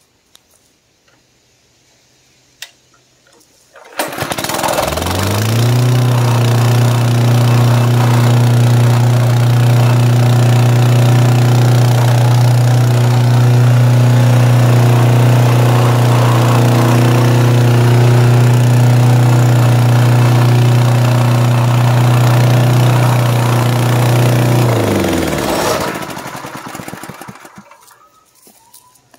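Honda GX160 single-cylinder four-stroke engine on a Wacker plate compactor starting about four seconds in, revving up and running steadily at full throttle with the choke set, then shut off after about twenty seconds and winding down. It is the first start after a bad ignition coil was replaced, so the engine now has spark.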